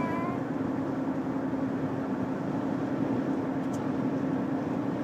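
Steady car-interior road and engine noise, an even rumble with a constant low drone, heard from inside a moving car. A baby's pitched vocal sound trails off right at the start, and there is one faint click later on.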